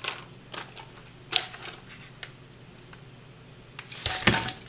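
Light clicks and taps of small parts being handled on a wooden workbench, then a louder cluster of knocks and rattles near the end as a small cardboard box holding a plastic grease bottle is set down.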